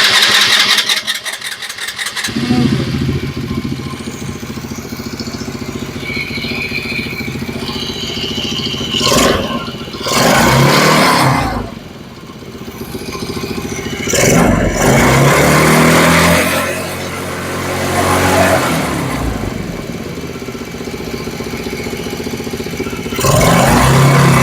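Small four-stroke engine of a kids' Chinese ATV cranking and catching about two seconds in, then idling. It is revved up several times, with the pitch rising on each surge.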